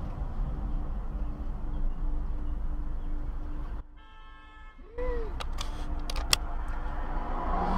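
Road noise inside a moving car, picked up by a dashcam. About four seconds in the noise drops off suddenly; then comes a short tone that rises and falls in pitch, and a few sharp clicks.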